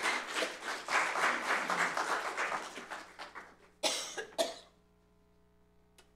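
Congregation applauding after the choir's song, the clapping dying away about three and a half seconds in, followed by two short sharp sounds and then quiet.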